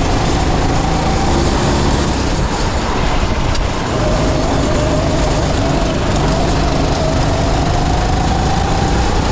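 Kart engine at speed, heard from an onboard camera over a dense rushing noise. Its revs dip about four seconds in, then climb steadily through to the end.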